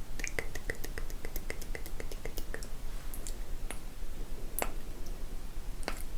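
ASMR mouth sounds made close to the microphone: wet tongue and mouth clicks, coming quickly at first and then more sparsely, with a few louder clicks near the end.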